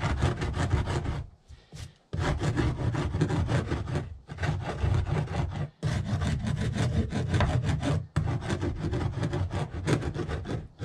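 Rapid scraping on a wooden deck board, in several stretches of one to three seconds broken by brief pauses.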